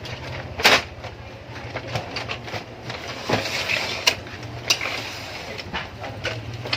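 Scattered clicks and knocks of printer-scanner parts and tools being handled during reassembly, the loudest a sharp knock a little under a second in, over a steady low hum.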